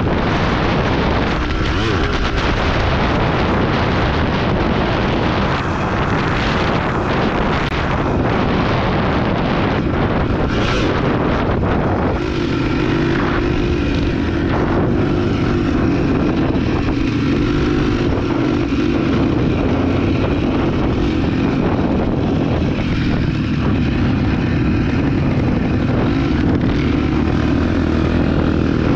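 Off-road motorcycle engine running while riding, with heavy wind noise on the microphone. From about twelve seconds in, a steady engine tone stands out more clearly.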